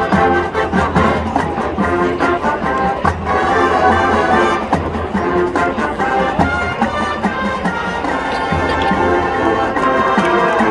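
Marching band playing brass-led music with a steady drum beat.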